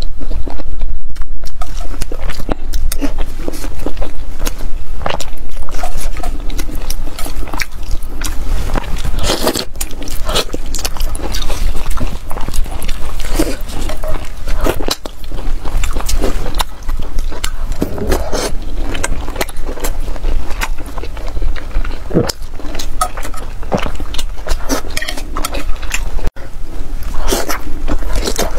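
Close-miked eating of braised pork: wet chewing, biting and mouth smacks, with irregular short clicks throughout.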